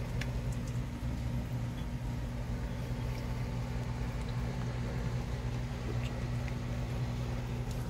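Steady low mechanical hum throughout, with a few faint ticks scattered over it.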